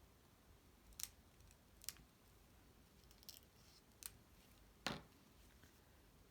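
Five short, sharp clicks and snaps of cardstock pieces being handled and pressed together, the loudest one near the end.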